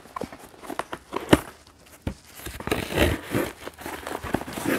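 Loose plastic shrink-wrap crinkling on a cardboard box as it is handled and turned over, with scattered sharp knocks from the box, the loudest about a second in.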